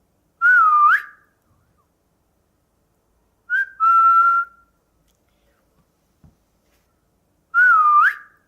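A person whistling three short calls with pauses between them. The first and last dip in pitch and then sweep up at the end; the middle one is a short high note followed by a held, steady note.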